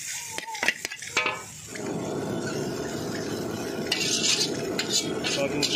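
Noodles stir-frying in a wok, a metal spatula knocking and scraping against the pan. A few sharp knocks come first, then from about two seconds in a steady sizzle runs under repeated scraping strokes.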